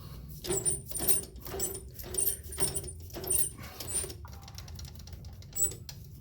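Threading die being turned by hand along a small metal valve stem, giving short squeaky scraping strokes about two a second that stop about four seconds in, with one more near the end.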